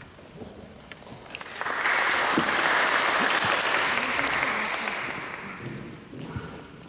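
Audience applauding. The applause starts about a second and a half in, swells, and then dies away.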